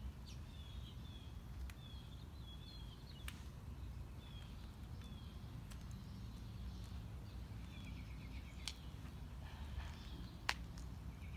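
Small birds chirping in short repeated phrases over a low steady rumble, with a few sharp ticks, the loudest about ten seconds in.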